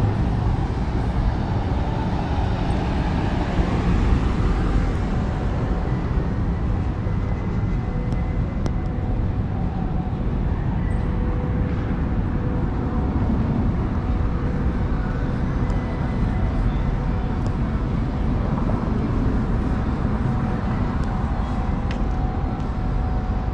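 Steady downtown street ambience: traffic noise with a low rumble, and a few faint steady hums.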